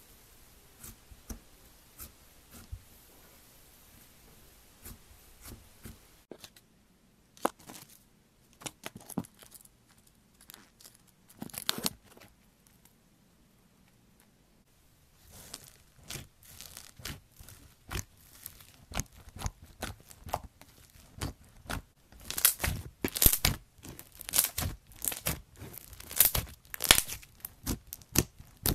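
Hands pressing and squishing slime, making crackling, popping clicks. The clicks are sparse and soft at first, with a few seconds of near silence in the middle, then come thick and fast and are loudest near the end.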